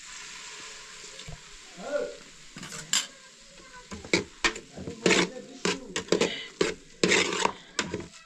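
A long metal ladle stirring and scraping inside a metal cooking pot, in quick strokes about twice a second that start about four seconds in. A steady hiss underlies the first part.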